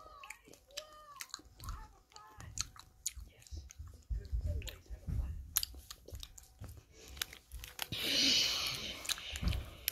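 Close-up chewing of sour Skittles candies: soft, wet clicks of chewing, with a brief louder rustle about eight seconds in.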